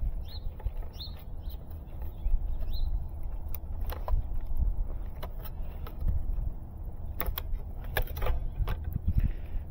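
Scattered plastic clicks and ticks from handling a fiber splice enclosure and cinching zip ties on its splice tray, in small clusters around the middle and near the end. Under them runs a steady low rumble, with a few faint bird chirps in the first few seconds.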